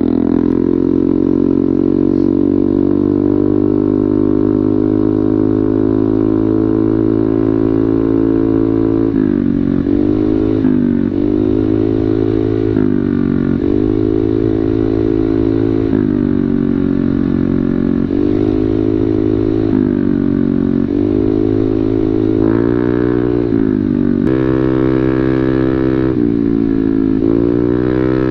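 Stock-engined motorcycle running through a Vin Project samlong aftermarket exhaust, a full system with a drilled baffle insert and 38 mm inlet. It idles steadily for about nine seconds, then the throttle is blipped over and over, the exhaust note rising and falling every second or two.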